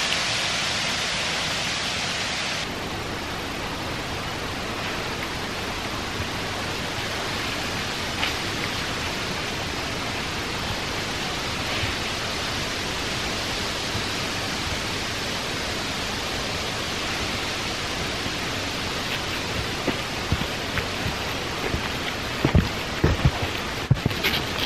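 Steady rush of running water from a small forest brook. A few soft footsteps thud on the earth path near the end.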